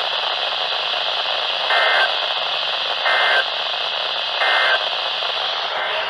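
NOAA Weather Radio heard through a Midland emergency radio's speaker: a steady static hiss, broken by three short data bursts about 1.4 seconds apart. These are the Emergency Alert System end-of-message codes closing a severe thunderstorm warning. Another burst begins right at the end.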